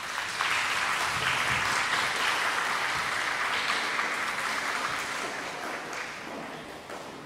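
Audience applauding, strong for the first five seconds or so and then dying away near the end.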